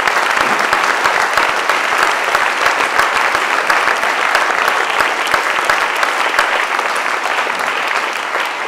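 Audience applauding, many hands clapping steadily and then tapering off near the end.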